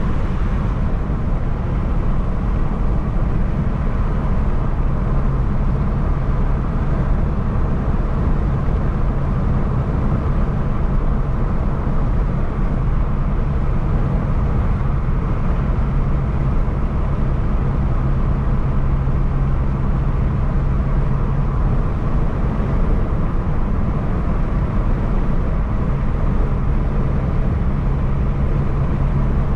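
Four-cylinder car engine running at a steady cruise, with road and tyre rumble, heard from inside the car. The steady engine hum fades for a few seconds about two-thirds of the way through, then returns.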